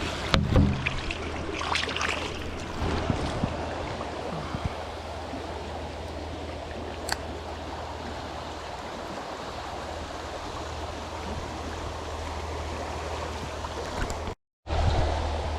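Creek water rushing steadily, with a few loud knocks in the first couple of seconds.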